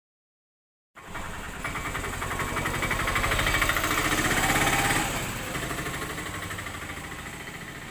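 Suzuki Samurai 100cc two-stroke motorcycle engine running, cutting in abruptly about a second in, growing louder for a few seconds and then easing off.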